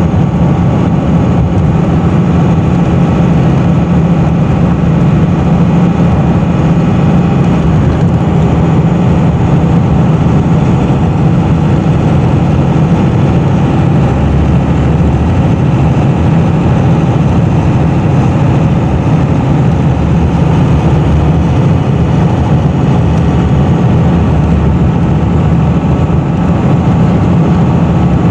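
Dodge Ram's 12-valve Cummins 5.9 L inline-six turbodiesel running steadily, with a deeper low rumble for about ten seconds in the middle.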